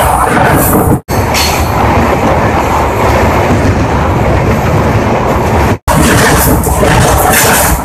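Express passenger train coaches passing at speed right beside the track: a loud, steady rush of wheels on rails and buffeting air. The sound cuts out abruptly twice, about a second in and near six seconds, where the footage is edited.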